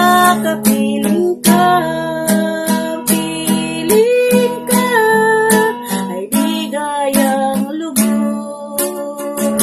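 A woman singing a devotional song in Tagalog while strumming an acoustic guitar, with long held sung notes over steady strums.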